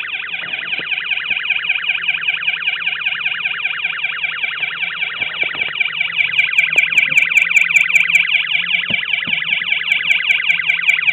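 Electronic siren sound from a hobby solder-kit circuit played through a small speaker: a fast, continuous warble of rapidly repeated falling sweeps. Partway through and again near the end, a quick run of high-pitched beeps joins in.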